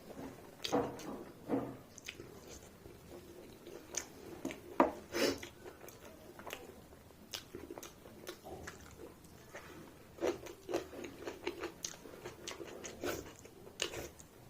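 A person chewing and biting food close to the microphone, with irregular crunchy clicks and wet mouth sounds.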